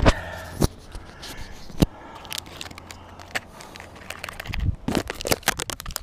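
Handling noise on a GoPro in a plastic float case swinging on a rope: a few separate sharp knocks and clicks, then from about four and a half seconds in a quick run of clicks, rubbing and a low rumble as a hand grabs the case.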